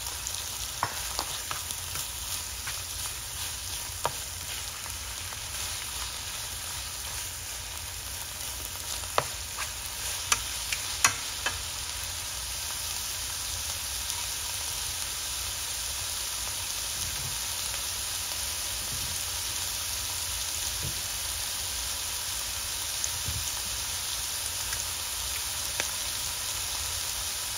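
Mixed vegetables (broccoli, cabbage, carrot, peppers) sizzling steadily as they sauté in a frying pan, with a few sharp clicks about nine to eleven seconds in.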